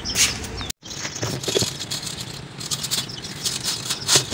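Wire bird cage rattling and clicking as a terracotta clay pot is handled and fitted inside it, with scattered light knocks of metal wire against clay.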